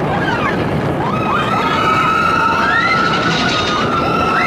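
Riders on a runaway-mine-train roller coaster whooping, with a long held high scream that rises in about a second in and carries on over the steady rumble and wind noise of the moving train.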